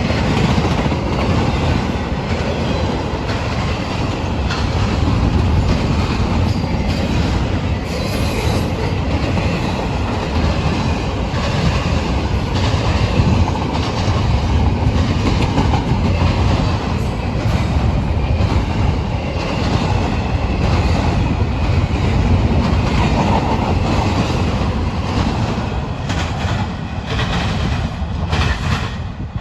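Freight train passing close by at speed: a steady loud rumble of steel wheels on the rails with repeated clacking over the rail joints.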